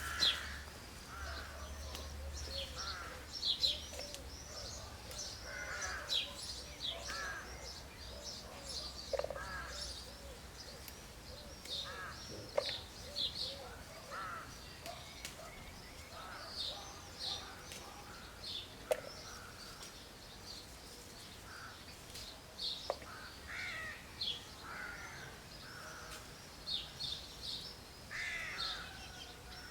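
Several birds calling outdoors: a steady scatter of short calls and high chirps from more than one bird, with a few sharp clicks here and there.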